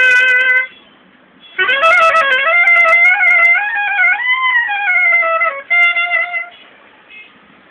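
Unaccompanied clarinet playing a slow, free-flowing alap. A held note breaks off just under a second in; after a short pause comes a long phrase of gliding, ornamented notes that ends on a brief held note, and the instrument rests near the end.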